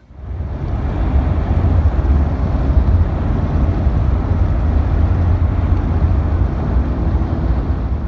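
A car driving at highway speed, heard from inside: a loud, steady rumble of road and wind noise, heaviest in the low end, cutting in suddenly at the start.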